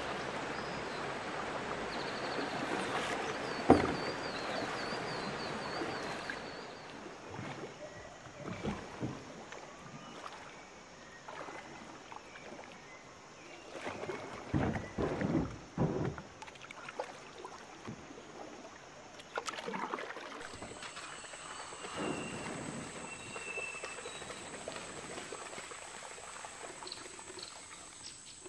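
Shallow river water rushing over rocks, with one sharp knock about four seconds in. The rush then gives way to calm river water and a few splashing kayak paddle strokes in the middle. A steady high insect drone sets in later.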